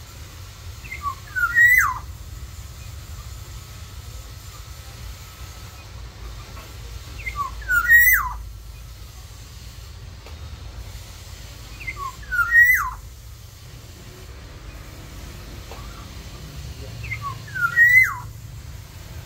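Black-naped oriole singing: four fluty whistled phrases about five seconds apart, each a few short rising notes ending in a quick falling slur.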